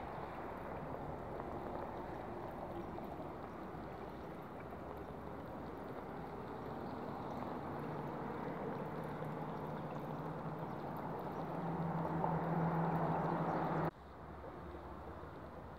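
Steady outdoor rushing noise with a low engine hum that grows louder over several seconds and then cuts off abruptly about two seconds before the end.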